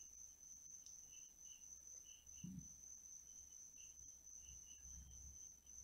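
Near silence: faint chirping of crickets, short and irregular, over a steady high thin tone, with one soft knock about two and a half seconds in.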